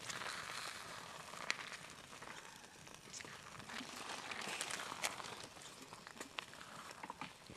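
Wooden spoon stirring beans and melted cheese in a steel pot on a small wood-burning stove: a soft, uneven scraping and rustling, with a few sharp clicks, the loudest about a second and a half in.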